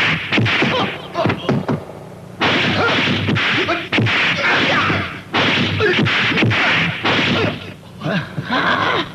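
Kung fu film fight sound effects: rapid runs of punch and kick impacts, with a quieter gap about one to two seconds in before the hits resume.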